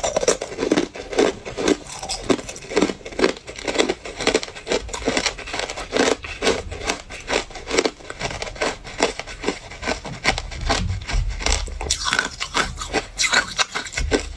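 Hard ice cubes crunched and chewed between the teeth: a dense run of sharp crackling crunches in a steady chewing rhythm of about three bites a second.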